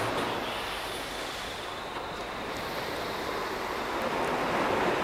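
A steady rushing noise that swells about four seconds in, then eases.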